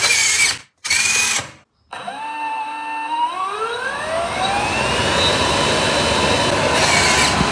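Small electric motor of a model turbofan engine: two short bursts, then it spins up with a rising whine and runs on at a steady pitch.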